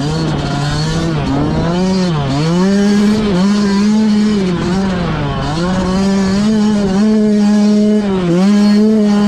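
2017 Yamaha YZ125's 125cc two-stroke single-cylinder engine running hard at high revs under load. The revs dip sharply several times and pick straight back up.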